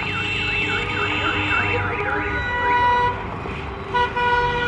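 A siren-style warbling horn sweeping up and down about three times a second, then car horns sounding steady blasts, with a short toot about four seconds in followed by a long held blast.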